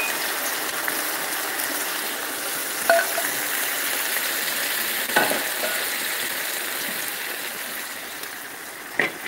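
Cream sauce sizzling as it hits a hot skillet of browned meatballs and leftover grease, the sizzle slowly dying down, with a few light clicks of a utensil against the pan.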